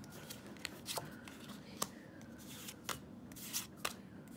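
Pokémon trading cards being flipped through by hand, each card slid off the stack with a light rub and a sharp snap. There are about half a dozen quiet snaps at uneven intervals.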